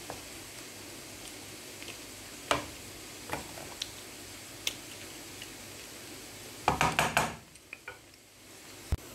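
A wooden spatula knocks and scrapes against an aluminium pan while turning cooked rice. Scattered single knocks come first, then a quick run of several louder knocks about seven seconds in, all over a faint steady hiss.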